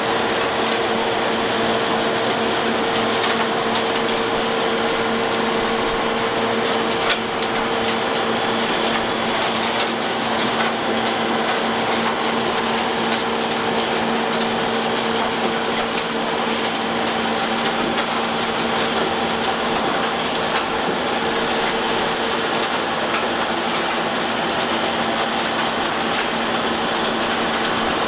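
Railway track-maintenance machine running on the rails: a steady mechanical hum over a constant dense clatter and rattle.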